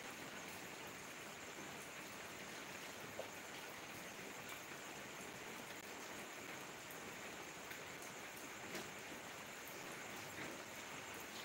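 Steady rain falling, with a few louder drips standing out now and then.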